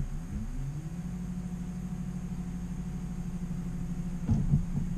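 Electric trolling motor on the bow of a bass boat running: its hum rises in pitch over about the first second as it spins up, then holds steady. A few knocks come about four seconds in.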